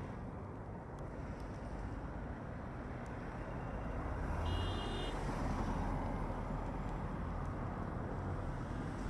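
Jet engines of an approaching Boeing 737-900ER on final approach: a steady rumble with hiss that grows louder about four seconds in.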